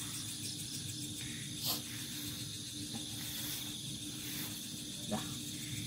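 Crickets and other night insects chirring steadily, with two short clicks, one about two seconds in and one near the end.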